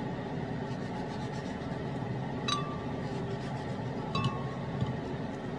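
Knife clinking against the glass of a blender jar as a tomato is cut over it: two sharp clinks, each with a short glassy ring, about two and a half seconds in and again about four seconds in, over steady background noise.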